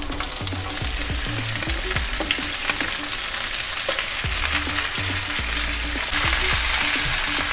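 Sliced cabbage, carrots and spring onions dropped into hot oil in a frying pan, sizzling; the sizzle grows louder about six seconds in.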